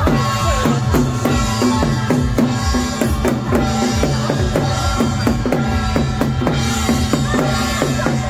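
Loud drum-led music: drums beating a fast, steady rhythm over a few held tones.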